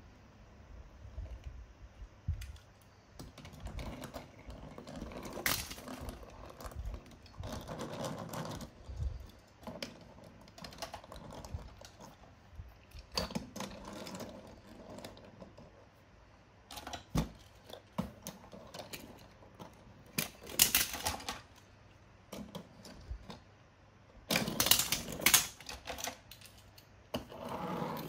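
Diecast toy cars rolling across a wooden tabletop and knocking into a heap of other toy cars: many small metal-and-plastic clicks and clinks, with stretches of wheels rumbling on the wood. The clatter grows louder about three-quarters of the way through and again near the end.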